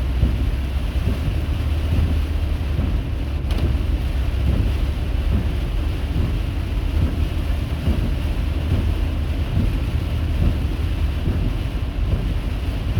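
Steady low rumble and hiss of a car driving through a storm, heard from inside, with wind buffeting the microphone.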